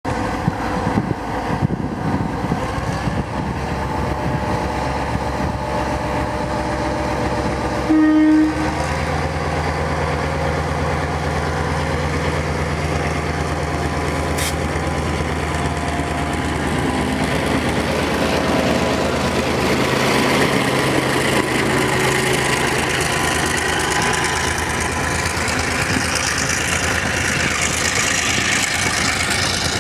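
GM G22 diesel-electric locomotive departing a station: a short horn blast about eight seconds in, then the diesel engine pulling with a steady low drone. Toward the end the noise of the train rolling and clattering grows as it gathers speed.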